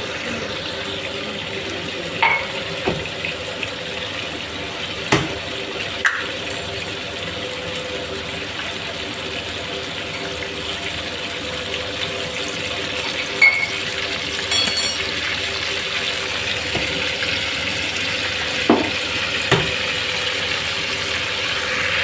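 Ginger-garlic paste frying in a large pot of hot oil, with a steady sizzle throughout. Several sharp metal clanks from a utensil on the pot come through it, and a faint steady hum sits underneath.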